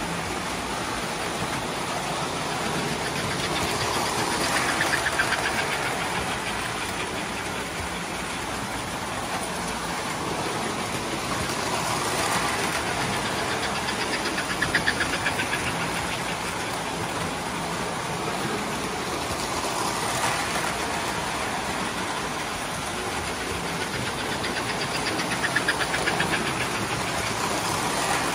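Several toy electric trains running on a model railroad layout: a steady rumble and hiss of wheels and motors on the track, swelling about four times as a train passes close by.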